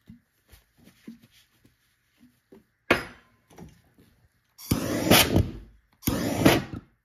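Small clicks and knocks, then a sharp knock about three seconds in as a lidded glass jar is set down on a workbench, followed by two loud, rough noisy bursts of about a second each near the end.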